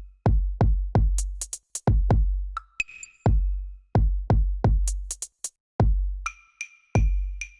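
Background electronic music with a steady drum-machine beat: deep booming kick drums and crisp hi-hat clicks.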